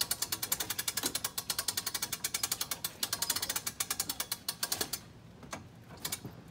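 A ratcheting mechanism clicking rapidly and evenly, about ten clicks a second, as something is cranked up. The clicking stops about five seconds in, leaving only a few scattered clicks.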